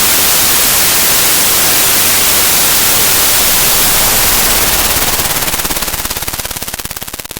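Harsh, loud static noise, even and hissing, used as part of a mock emergency alert alarm. From about five seconds in it fades and breaks into a fast, even flutter.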